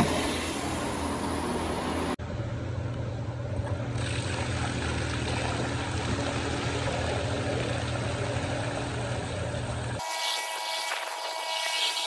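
A steady low mechanical hum under a haze of noise. The sound changes abruptly about two seconds in, and again near the end, where the hum drops away and a few thin steady tones remain.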